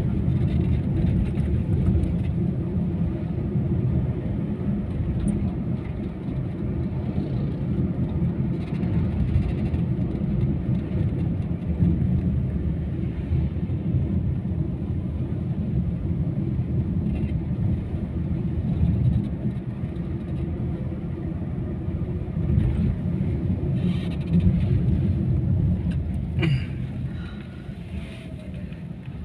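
Cabin noise of a 2022 Daihatsu Ayla X on the move: a steady low rumble from its 1.2-litre four-cylinder engine and the tyres on the road, easing off a little near the end.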